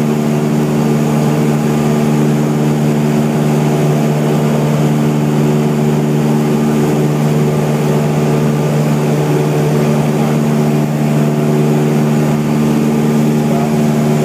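A light aircraft's piston engine and propeller running steadily at an unchanging pitch, heard from inside the cabin in flight.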